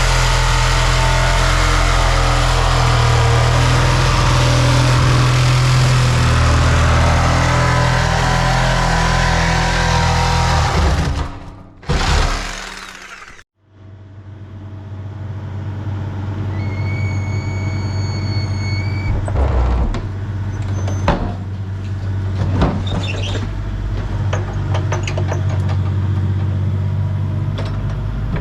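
An engine running steadily at the work site, with loud harsh noise over it for the first ten seconds or so. After a short break, the engine runs on alone, with a brief high whine and scattered metal knocks.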